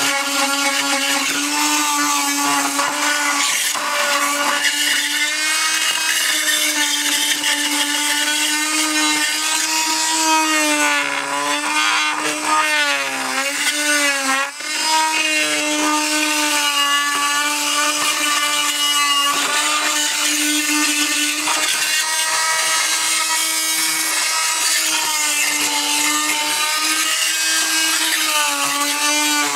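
Chicago Electric oscillating multi-tool fitted with a carbide tile and masonry blade, running steadily with a loud buzzing drone as it cuts along the edge of an old floor tile to free it. Its pitch wavers and sags for a few seconds near the middle.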